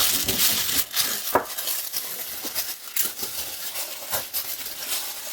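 Plastic packaging bags crinkling and rustling as small microphone-kit parts are unwrapped, with scattered light clicks and taps.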